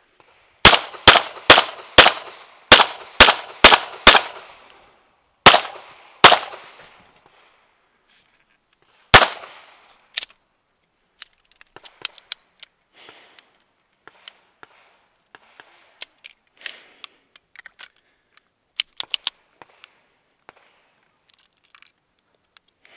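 STI Matchmaster Open-division competition pistol firing about eleven shots, mostly in quick pairs, over the first nine seconds. After that there are only scattered soft clicks and scuffs.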